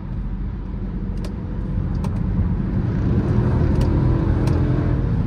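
Dodge Durango R/T's 5.7-litre Hemi V8 heard from inside the cabin, accelerating and growing steadily louder, with a few sharp clicks over it.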